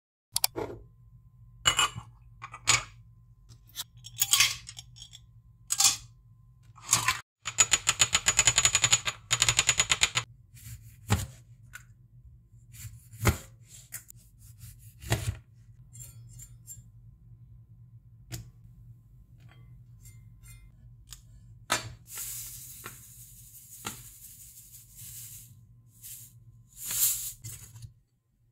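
Kitchen prep sounds: a knife slicing lemons and tapping on a plastic cutting board in single sharp knocks, with a quick run of clicks in between. Later comes a hiss of sugar being poured into a glass bowl, then a spoon scraping and clinking in it, over a faint low hum.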